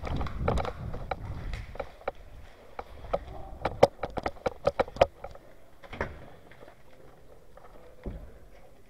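Footsteps and gear handling noise from a player moving across a debris-strewn concrete floor: irregular sharp clicks and scrapes over low rustling against the camera. The clicks come thickest about halfway through, then thin out.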